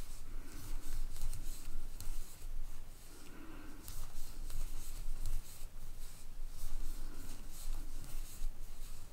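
Crocheting with a metal crochet hook: quiet, scratchy rustling of yarn drawn through the loops, with many faint ticks as the hook catches and pulls the yarn.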